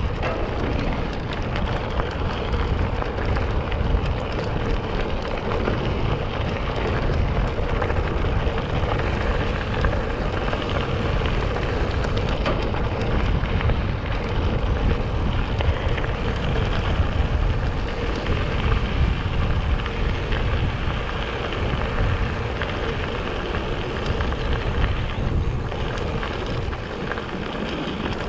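Mountain bike rolling fast over a gravel trail: a steady crunching rush of tyres on loose stones, with a deep rumble underneath.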